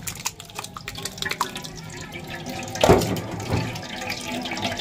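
Green water of crushed leaves poured from a plastic basin through a perforated metal strainer into a bowl, splashing and dripping. There is a louder thump about three seconds in.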